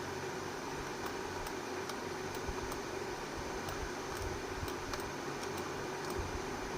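Steady hiss and hum like a running fan or blower, with faint scattered ticks over it.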